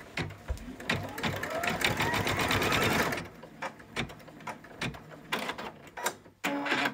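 Brother Stellaire embroidery machine running: a fast run of needle strokes with a rising motor whine for about three seconds, then scattered clicks and ticks. This comes at the end of a stitch-out, where the machine's automatic thread cutter is failing to cut the tail.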